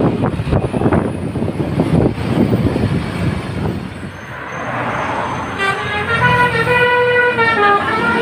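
Bus's seven-trumpet 'basuri' telolet air horn, sounding several notes at once and playing a melody that steps in pitch, coming in about five and a half seconds in. Before it, a rumbling engine and road noise.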